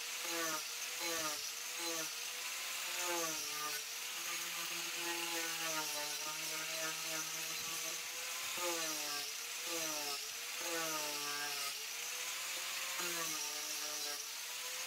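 Ryobi angle grinder with a Kutzall carving disc running and power-carving wood, its high whine wavering as the disc is pressed in and eased off. A tune with sliding and held notes plays along with it.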